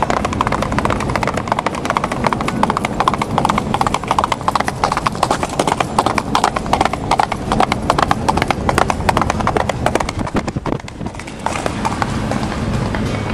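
Hoofbeats of horses running on a dirt road, a rapid, uneven clatter, heard from a moving car over its low road rumble. The hoofbeats thin out about eleven seconds in.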